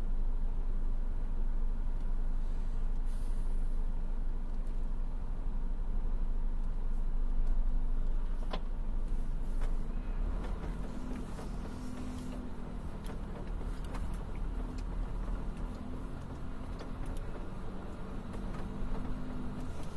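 Diesel engines of hydraulic excavators and dump trucks running with a low, steady rumble. A steady engine hum comes in about halfway through, and scattered sharp knocks of rock being loaded are heard in the second half.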